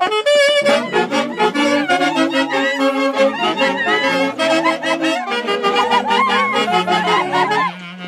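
Huaylas music from a typical Andean wind orchestra: saxophones and clarinets carry the melody with a wavering vibrato over a steady bass line.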